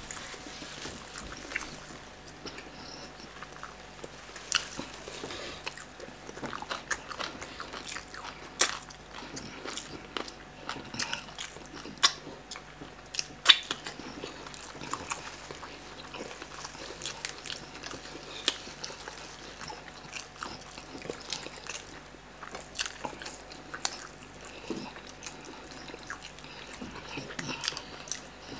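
Eating sounds of chicken being chewed and picked apart by hand: irregular wet smacks and sharp clicks scattered throughout, with no speech.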